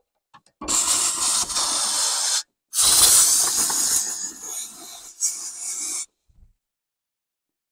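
Compressed-air blow gun blasting dirt and insect debris off the top of a fuel pump: two long hissing blasts, the first starting about half a second in and the second stopping sharply about six seconds in.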